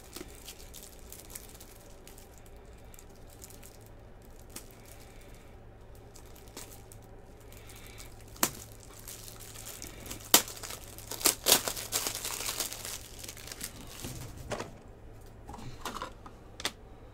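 Plastic packaging crinkling and rustling as trading cards are unwrapped and handled, with a few sharp clicks. The crinkling is loudest for a couple of seconds past the middle.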